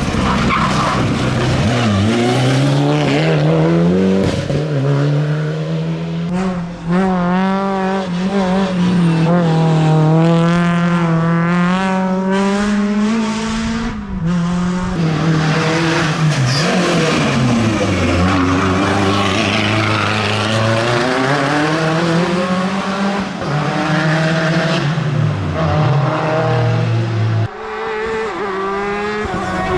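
Hill-climb race car engine under hard acceleration, its pitch climbing through the revs and dropping sharply at gear changes and lifts for corners.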